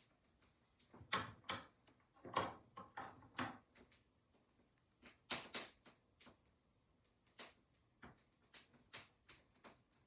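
A scattered series of light knocks and clicks, irregular and in small clusters, as of hard objects being handled and set down.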